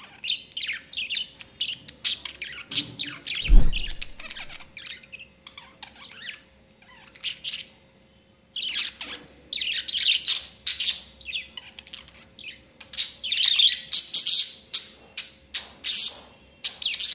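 Budgie giving rapid runs of short, harsh squawks and chirps while it defends its clay breeding pot from a hand reaching toward it. One loud low thump comes about three and a half seconds in.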